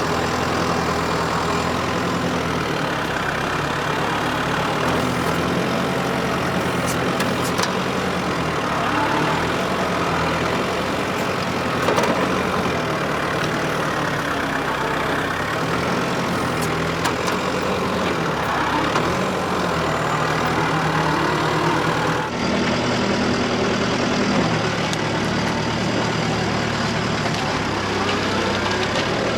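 New Holland WorkMaster 55 tractor's diesel engine running steadily as it works with a stump bucket grapple, with a few faint clicks.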